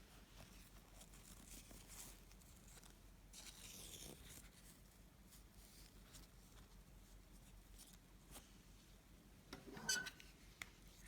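Faint rustling and handling of fabric and ribbon while a hair bow is pressed and worked by hand, with a louder rustle about four seconds in and a sharp tap near the end.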